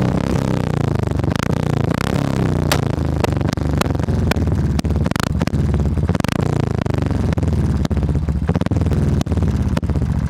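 Royal Enfield single-cylinder motorcycle running through an aftermarket Moto Torque silencer: its pitch rises and falls with revving near the start, then it settles into a steady deep beat with occasional sharp cracks from the exhaust.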